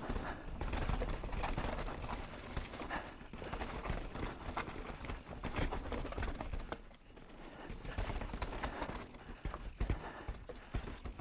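Mountain bike descending a rocky, rooty trail: tyres clattering over stones and roots, with the bike rattling in a dense, uneven run of knocks. The clatter eases briefly about seven seconds in.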